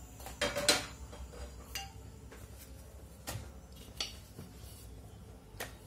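Stainless steel kitchen bowls and utensils being handled: a cluster of clinks and knocks about half a second in, the loudest, with a short ring, then a few single clinks spaced out after it.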